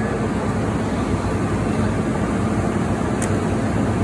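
A steady engine rumble with a constant low hum, like an idling vehicle engine, with one faint brief click about three seconds in.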